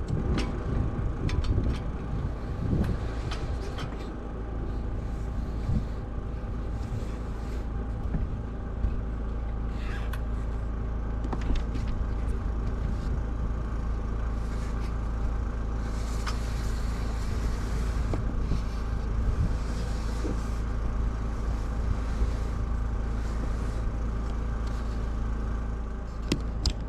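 A steady low motor hum and rumble, with scattered short knocks and clicks.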